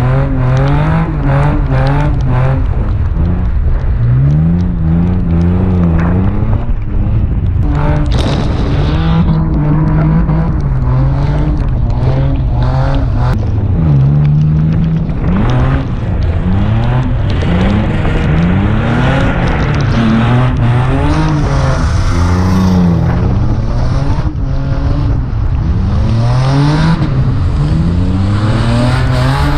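Turbocharged 1JZ straight-six in a swapped Nissan 350Z drift car, revving hard up and down through a drift run, its pitch climbing and dropping every second or two. A steady rush of wind and road noise runs underneath.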